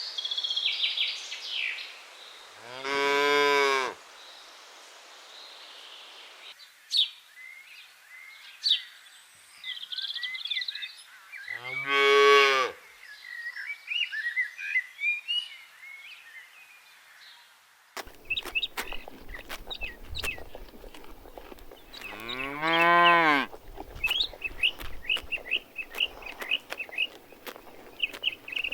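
Cows mooing: three long moos of about a second each, spread out, with birds chirping between them.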